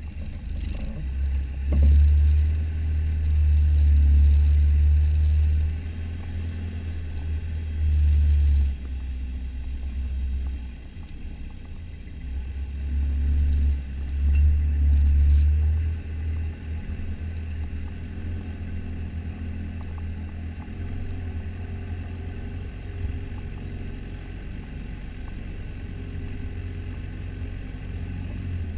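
Four-wheel drive's engine running at low speed on a rough dirt track, heard from the bonnet as a deep rumble. It swells louder three times in the first half, then settles to a steady rumble.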